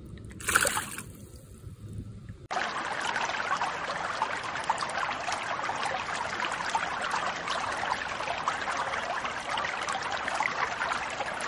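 A short splash of water about half a second in as the released largemouth bass swims off, over a low rumble. Then, about two and a half seconds in, a steady trickling, running-water sound starts abruptly and carries on.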